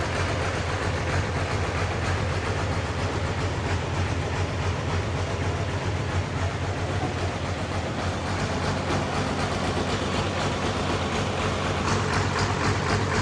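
Sawmill running steadily, its engine humming under the noise of the saw working through a large trembesi log, with a busier rattle coming in near the end.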